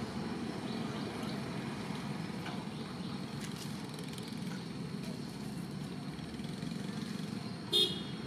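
Steady low rumble like distant vehicle traffic. Near the end comes one short, high-pitched squeal, from a young long-tailed macaque at play.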